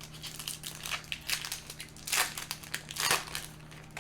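Crinkling of a Yu-Gi-Oh! booster pack's plastic wrapper being handled and torn open: a run of quick crackles, with two louder ones in the second half.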